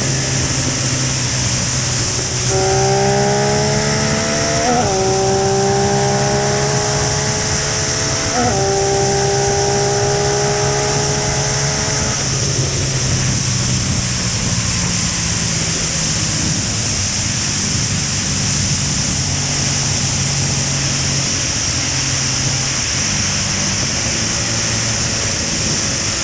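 Motorcycle engine under heavy wind rush at highway speed. A few seconds in, the revs climb hard, with two quick upshifts where the pitch drops and climbs again. Then it settles back to a steady cruise.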